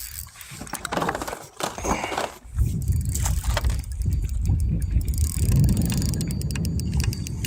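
Wind rumbling on the microphone from about two and a half seconds in, over clicks and knocks of fishing tackle while a hooked bass is reeled in. A run of fast fine ticks comes near the middle.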